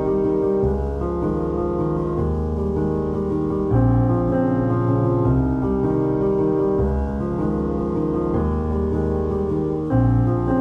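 Background piano music: held chords that change every few seconds.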